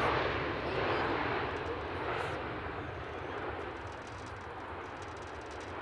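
Jet airliner's engine noise, a broad rushing roar that fades gradually as the aircraft moves away.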